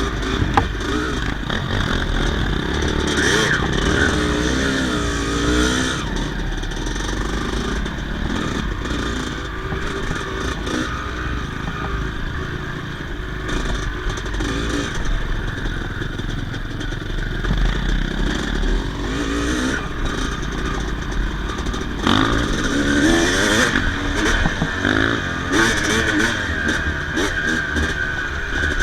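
Yamaha YZ250 single-cylinder two-stroke dirt bike engine running, its revs rising and falling. The revving is strongest about three to six seconds in and again from about twenty-two seconds.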